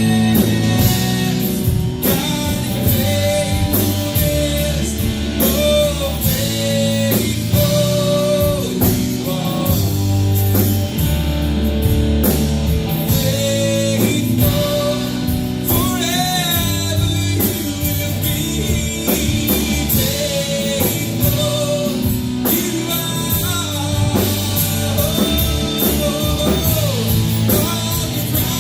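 Live worship band playing a rock-style song with drums, bass and guitars, with a melody line bending over the top.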